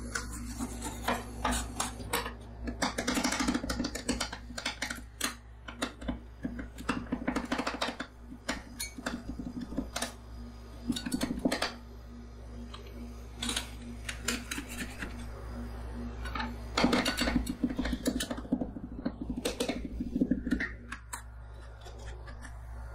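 Two metal spatula scrapers on a steel rolled-ice-cream cold plate, chopping and spreading Lotus Biscoff cookie and cream mixture. They make quick, irregular clicks, taps and scrapes in clusters, over a steady low hum.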